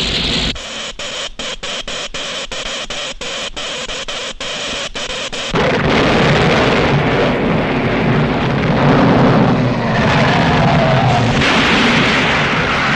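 Vintage cartoon sound effects with orchestral score. First comes a rapid, even pulsing of sharp clicks from the scientist's electric earthquake machine, about four or five a second. About five and a half seconds in, a loud earthquake rumble and crashing take over, with dramatic music through them.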